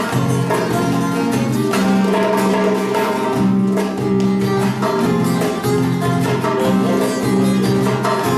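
Bağlama, guitar and darbuka playing together: plucked bağlama and guitar notes over a steady hand-drum rhythm on the darbuka, with no singing.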